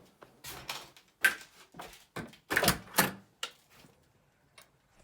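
Irregular knocks and clattering: a handful of sharp strikes, loudest about a second in and again around three seconds in, with quieter ticks between.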